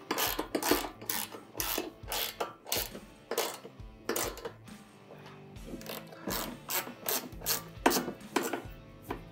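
Half-inch socket ratchet clicking in quick repeated swings as 5/16-inch bolts are cranked down tight, with a short pause in the strokes about halfway through.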